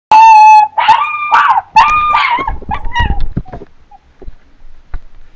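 Chinese crested dog howling: three drawn-out, high, wavering cries in the first two and a half seconds, trailing off into shorter whimpering yips, then a few faint knocks.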